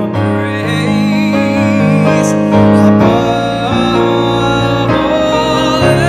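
A man singing a slow worship song with vibrato, accompanied by sustained piano chords.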